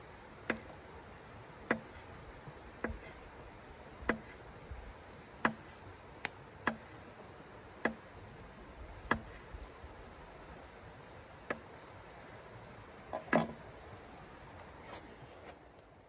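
Folding knife slicing a dry sausage against a hard camp-table top: a sharp tap each time the blade cuts through, about one a second, with a louder knock near the end.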